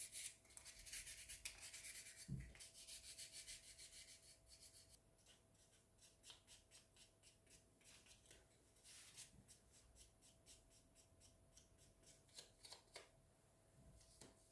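Faint quick rubbing strokes on a small paper-clay craft piece for about the first five seconds, then only scattered light scrapes.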